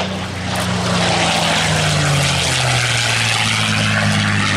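North American P-51 Mustang flying low past with its Merlin V-12 engine running. The engine note drops in pitch about halfway through as the plane goes by.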